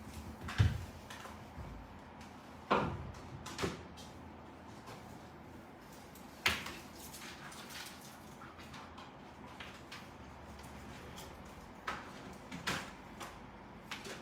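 Scattered knocks and clunks from objects being handled and set down on a workbench, with a heavier thud about half a second in and a few lighter knocks near the end.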